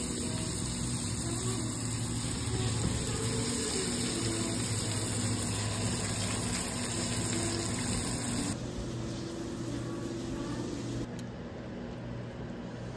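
Diced bacon sizzling in a frying pan, with a steady low hum underneath. About eight seconds in the sizzle stops and a quieter steady noise takes over.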